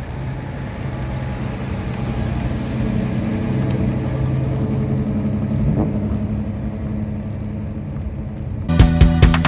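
Engine of a Chevrolet Advance Design pickup running steadily at low speed as the truck pulls away. Loud rock music cuts in near the end.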